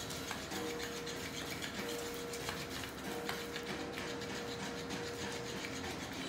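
Motorised flopping-fish plush toy running: its small motor gives a steady whine that drops out briefly every second or two, over the fabric fish flapping and brushing on the laminate floor, with a few light clicks.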